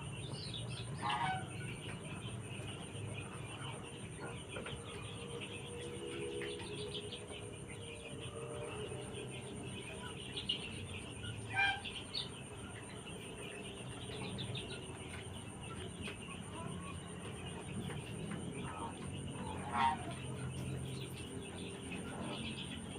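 Domestic chickens calling, with soft chirps and clucks throughout and three louder short squawks, about a second in, near the middle and near the end, over a steady low hum.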